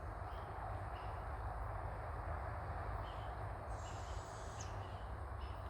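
Steady outdoor background noise with a few faint, short, high bird chirps scattered through it, and a thin high whistle lasting under a second about four seconds in.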